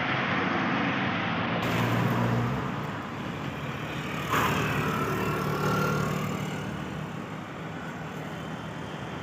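Road traffic: vehicles passing with a steady engine hum and tyre noise, louder in the first few seconds and easing off later.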